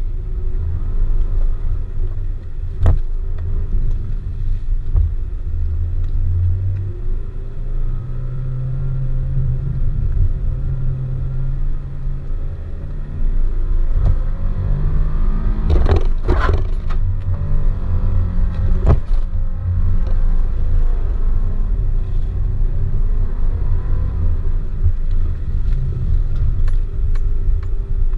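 Nissan Pathfinder's engine and drivetrain rumbling from inside the cab as it drives over soft sand dunes, the engine note rising and the noise getting louder about halfway through as it climbs a steep dune. A few sharp knocks and rattles from the body over the bumps, the loudest cluster about two thirds of the way in.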